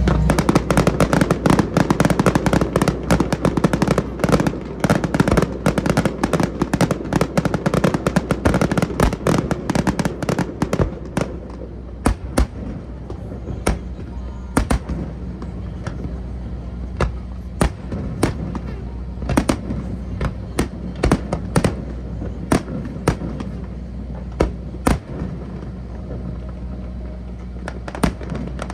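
Aerial fireworks bursting: a rapid, dense barrage of cracks and bangs for about the first ten seconds, thinning after that to scattered single bangs a second or more apart.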